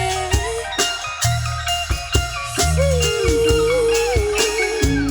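Live R&B band playing an instrumental passage: electric bass and drum kit keeping the groove under a guitar melody with bending, sliding notes.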